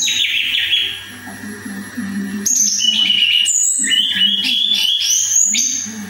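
Caged tledekan songbird singing: a short phrase of clear whistled notes at the start, then a longer run of high whistles and quick sliding notes from about halfway through to near the end.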